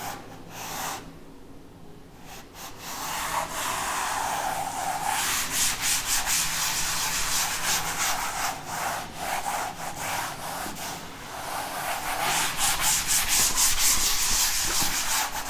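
A hand-held eraser rubbing chalk off a chalkboard in quick back-and-forth strokes: faint for the first couple of seconds, then steady, rapid scrubbing.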